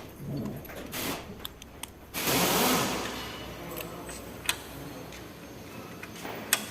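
Torque wrench working the single-cylinder diesel's cylinder head bolts: short rasping ratchet strokes, the longest about two seconds in, then a few sharp metallic clicks.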